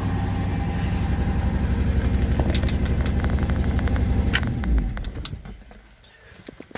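Ford 390 V8 of a 1965 Thunderbird idling with a steady, even pulse, then switched off about four and a half seconds in and running down with a low shudder. A few light clicks follow.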